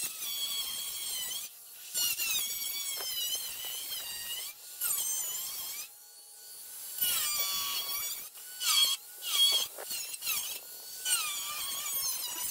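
Corded angle grinder with a thin cut-off wheel cutting through the sheet metal of a truck fender. It gives a high-pitched whine whose pitch dips and recovers as the disc bites and is eased off. There are several short breaks between cuts and a longer pause about six seconds in.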